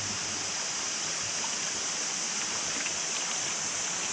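Steady rushing of running water, like a forest stream, with an even high-pitched hiss over it.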